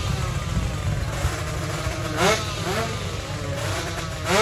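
Tuned drag-racing motorcycle engine being blipped at the start line: two sharp revs about two seconds apart, each rising quickly and falling back to a rough idle.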